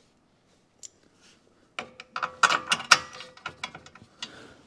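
Metal suspension hardware (bolts, nuts and washers) clinking and clattering. After one early click, a quick, irregular run of sharp metallic clicks with brief ringing starts about two seconds in and stops shortly before the end.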